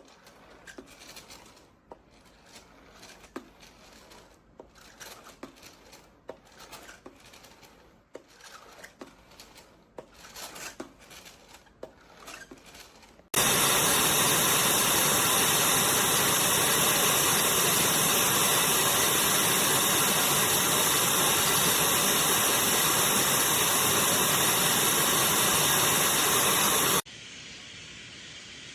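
Light clicks and knocks of plastic vacuum parts being handled, then the Miele Blizzard CX1 bagless canister vacuum running: a loud steady hiss of motor and airflow that starts suddenly about halfway through. Near the end it drops abruptly to a quieter steady running noise.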